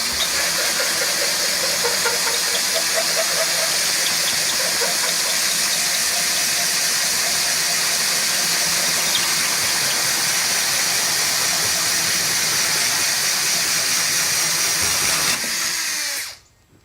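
Battery drill driving a 2 3/4-inch hole saw through the bus's fiberglass wall: a loud, steady, hissing grind that stops near the end.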